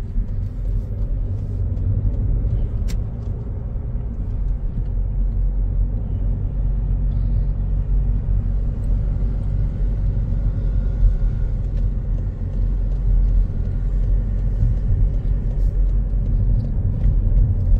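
Car on the move, heard from inside the cabin: a steady low rumble of engine and tyre noise.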